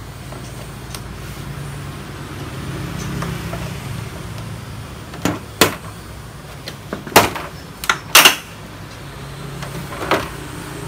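Screwdriver and screws working on the plastic back cover of a Sony KDL-40BX450 LCD TV being taken apart: a handful of sharp clicks and knocks in the second half, over a steady low hum.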